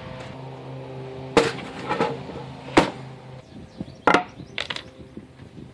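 Wooden knocks as a sheet of plywood and a wooden straightedge strip are handled and laid on a bench top: three sharp knocks about a second and a half apart, then a few lighter clicks.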